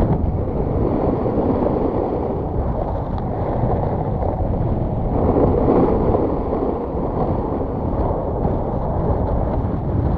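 Wind rushing over the microphone of a snowboarder's body-mounted camera, with the snowboard's edge scraping over groomed snow; the rush swells about halfway through as the rider leans into a turn.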